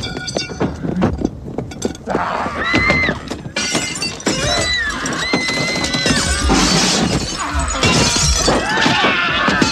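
A loud, dense clatter of crashing and smashing noises over music, with a few high wavering tones from about two seconds in.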